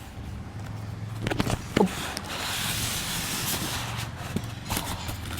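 Cardboard box and packaging being opened by hand: a few knocks and a sharp click about two seconds in, then a steady rustling, sliding hiss as the packaging is pulled and rubbed.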